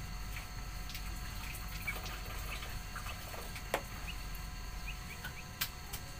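Small birds giving soft, short, high chirps scattered all through, with a few sharp clicks, the loudest about two thirds of the way in.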